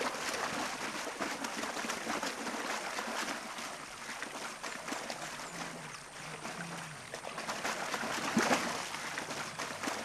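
Nile crocodiles thrashing in shallow river water as they tear at a carcass: churning water and repeated splashes, with one louder splash about eight and a half seconds in.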